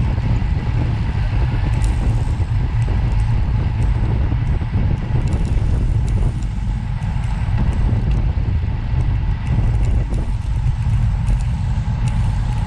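Steady low rumble of a moving vehicle, with faint scattered clicks.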